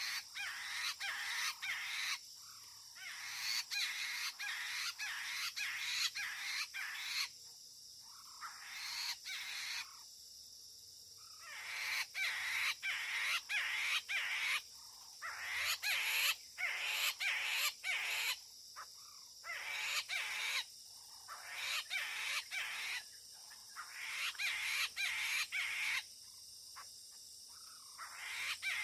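A poksay mandarin laughingthrush calling in loud bouts of rapid, harsh notes, broken by short pauses every few seconds.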